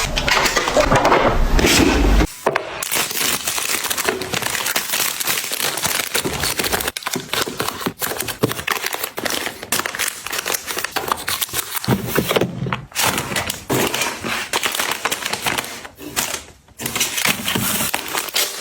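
Plastic snack and tissue packaging crinkling and rustling as it is handled, with many small clicks and taps of items being set down. The sound changes abruptly several times.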